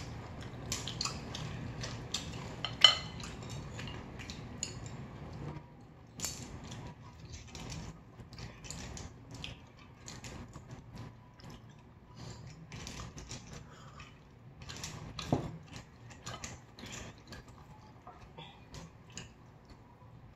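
Cutlery clinking and scraping against plates and bowls during a meal, in many short irregular clicks, with the sharpest clinks about three seconds in and again about fifteen seconds in.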